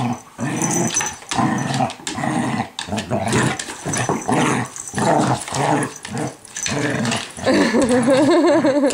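A kelpie and a puppy play-fighting, growling in short bursts again and again. Near the end one gives a longer, higher growl whose pitch wavers up and down.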